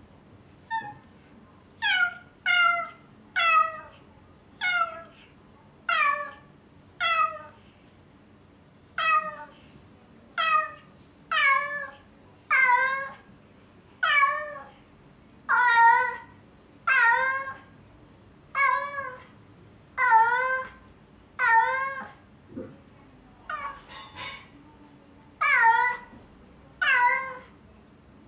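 A cat meowing over and over, one loud meow falling in pitch about every second, with a few shorter, quicker cries about two-thirds of the way through. These are calls that the owners take for lonely crying for them to come home.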